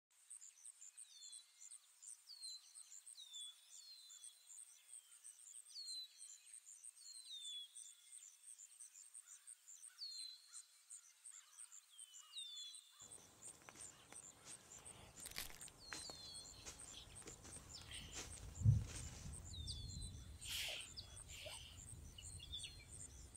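Outdoor birdsong: repeated short, falling chirps over a steady, high-pitched pulsing trill. From about halfway through, quiet rustling is heard under the birds, with one sharp thump a little after it starts.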